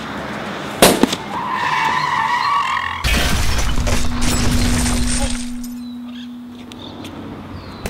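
A sharp bang, then a high screech for about a second and a half, then a loud rushing crash with a deep rumble that fades over about two seconds, leaving a steady low hum.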